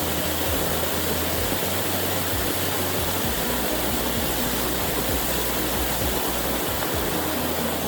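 Waterfall's steady, even roar of falling water.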